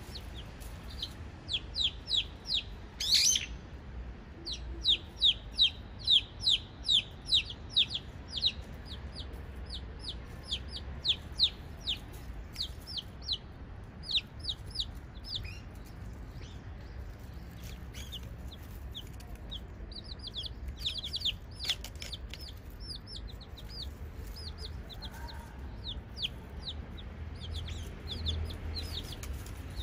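Domestic chicks peeping: runs of short, high, falling peeps, densest in the first ten seconds and sparser after. There is one louder, sharper call about three seconds in, over a steady low rumble.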